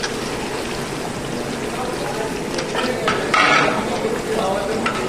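Food frying and sizzling in a large cooking pot while a ladle stirs and scrapes it, with louder scraping about three seconds in.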